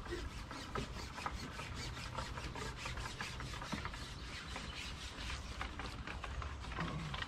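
Rapid scratchy rubbing, several short strokes a second, over a low rumble.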